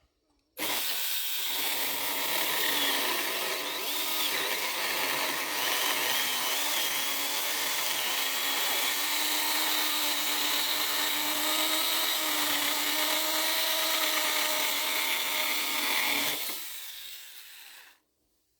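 Small battery-powered 6-inch electric chainsaw cutting through a 2x4, its motor whine starting suddenly under a second in and holding steady for about sixteen seconds, then cutting off and winding down near the end.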